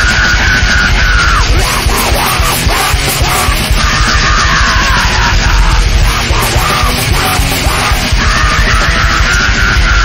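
Extreme metal band playing live at full volume: distorted guitars, bass and fast drumming, with a screamed lead vocal held in long shouts of about two seconds, three times.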